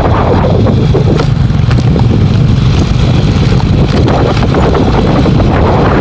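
Steady, heavy wind rumble on the microphone from travelling along an open road, with the low running of a vehicle engine underneath.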